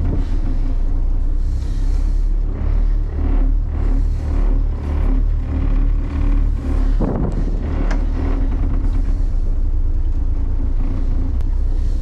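Twin diesel engines of a Defever 43 trawler running steadily, a deep rumble with a constant hum, heard from inside the wheelhouse.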